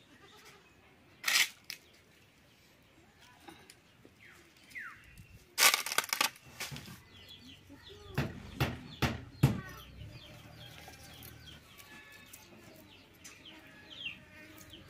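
A few sharp knocks and clatters: one about a second and a half in, a loud cluster about six seconds in, and three more between eight and nine and a half seconds. Faint bird chirps come and go between them.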